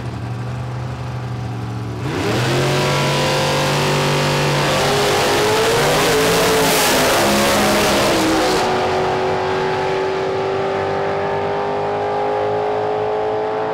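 Two Super Stock drag cars, a Chevy Cobalt and a mid-1950s Chevrolet, launching from the starting line at full throttle. An engine holds a steady note on the line, then about two seconds in the engines go loud and climb in pitch through several gear changes before fading down the track.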